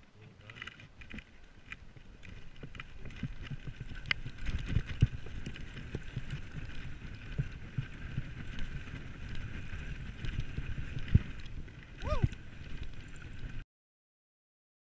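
Mountain bike ridden fast down a rough dirt trail: tyre and suspension rumble with repeated knocks and rattles over bumps, and a steady high whirr throughout. The sound cuts off suddenly near the end.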